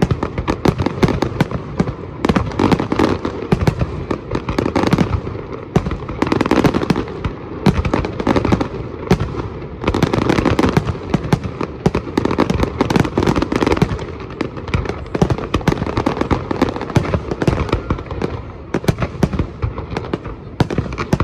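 Fireworks display: a dense, continuous barrage of bangs and crackles from bursting shells, swelling and easing every few seconds without ever stopping.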